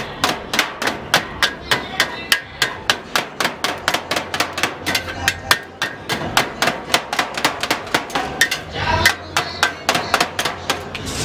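Knife rapidly chopping shaved shawarma meat against a steel tray, sharp metallic strikes at about four a second with a short break near the end.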